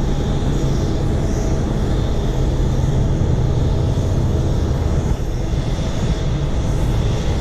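Boeing 737 MAX 9's CFM LEAP-1B turbofan engines running steadily: an even low rumble with faint steady whining tones above it.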